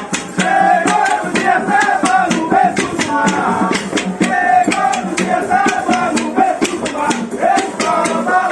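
Procession music: several voices singing over a steady beat of hand percussion.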